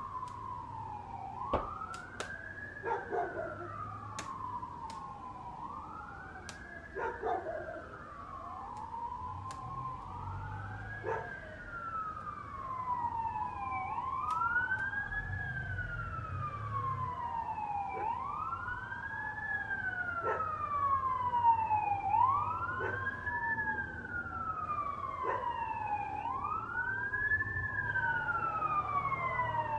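Two fire apparatus sirens wailing out of step with each other, each rising quickly and falling slowly about every three seconds, growing louder as the responding units approach. A few sharp pops are heard in the first ten seconds.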